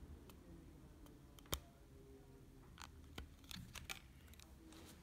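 Quiet handling of nail-stamping tools, a clear stamper and a metal stamping plate: a few light clicks and taps, with one sharper click about a second and a half in.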